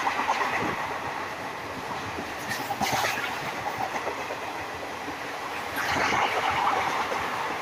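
Blue passenger coaches of an express train running through a station at speed. A steady rumble and rush of air runs throughout, with wheel clatter over the rails that gets louder about three seconds in and again around six to seven seconds in.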